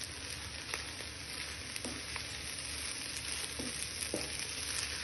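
Food sizzling in hot oil in a frying pan, a steady hiss with scattered light clicks and pops.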